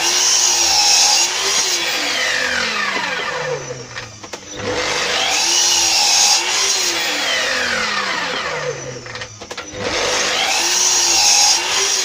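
Sliding mitre saw with a fine-tooth blade chopping plywood strips into short packers, three cuts in a row. Each time the motor runs up, the blade goes through the ply, and a falling whine follows as it winds down. There is a brief lull between cuts.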